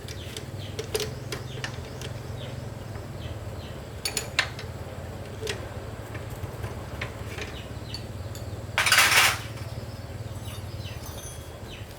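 Light metallic clinks and taps of metal tools or parts being handled, over a steady low hum. A short, loud burst of hiss comes about nine seconds in.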